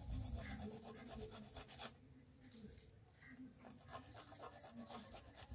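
Apple being grated on a hand-held flat stainless-steel grater: quick, repeated rasping strokes that pause briefly about two seconds in, then resume.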